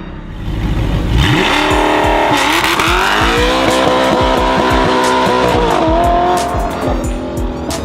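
A car engine revving up loud about a second in, its pitch climbing, dipping briefly, then climbing again and holding high before falling away near the end.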